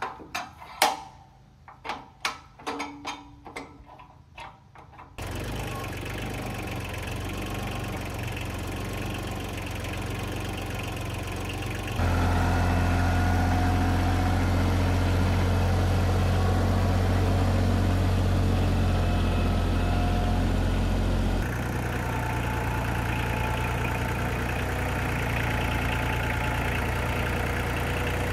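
Metal clanks and knocks from hand work on a portable sawmill's steel frame. Then, about five seconds in, a compact tractor's diesel engine runs steadily, growing louder about halfway through as it works and easing a little about three-quarters of the way through.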